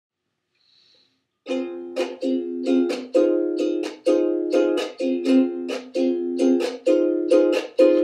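Mainland red cedar and rosewood soprano ukulele strummed in a steady rhythm, playing the chord introduction to a song; it starts about a second and a half in, out of silence.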